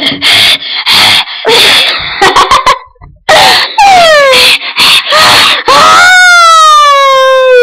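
Two girls' voices shrieking and laughing loudly in short bursts, then a long wailing cry that slides slowly down in pitch near the end.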